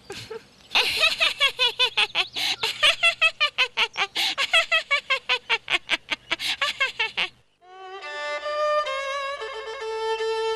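A woman laughing loudly and at length in rapid ha-ha pulses for about six seconds. The laughter stops, and music with held, wavering notes begins near the end.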